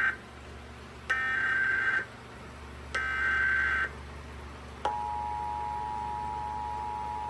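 Emergency Alert System tones: the SAME digital header's warbling data bursts, about a second each with a second's gap, the end of one and then two more. About five seconds in, the steady two-tone EAS attention signal begins and holds.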